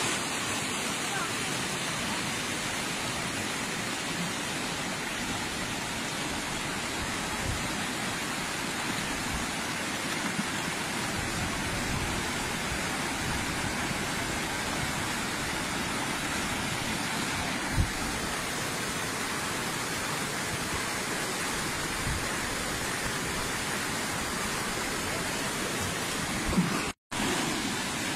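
River water rushing, a steady, even roar of flowing water, with a couple of brief knocks partway through and near the end.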